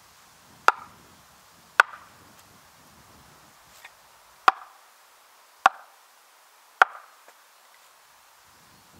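Wooden oak maul knocking on the back of an axe set into the end grain of a green ash log, driving it in to start a split: five sharp knocks, with a longer pause between the second and third.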